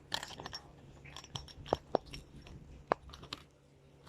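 A plastic fidget toy being handled: scattered light clicks and crackles, with three short pops, two of them close together a little under two seconds in and one near three seconds.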